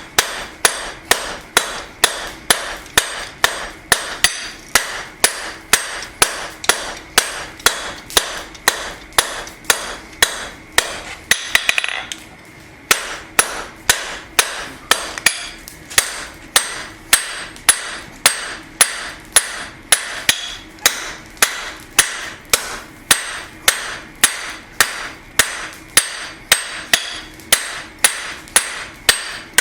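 Hand hammer striking hot steel on an anvil at a steady rhythm of about two blows a second, drawing out a square bar for a one-piece knife during a single heat. There is a brief pause about twelve seconds in.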